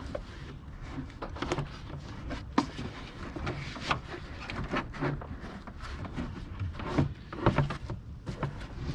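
Plastic air filter box being handled and fitted back onto the intake, with scattered knocks, taps and clicks as it is lined up.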